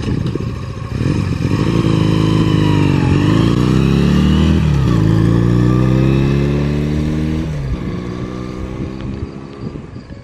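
Small Honda Rebel 250 motorcycle accelerating through the gears. The engine's pitch climbs, drops at shifts about three and five seconds in, climbs again, then falls about seven and a half seconds in. After that the sound fades as the bike rides away.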